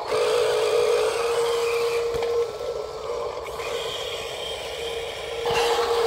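Small electric motor of a Huina RC model dump truck whining steadily as it works the tipping bed. It drops in level after about two and a half seconds and comes back louder near the end.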